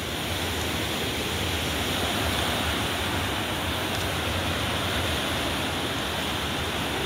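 Fast-flowing, swollen muddy river in flood, its churning water rushing with a steady, even noise.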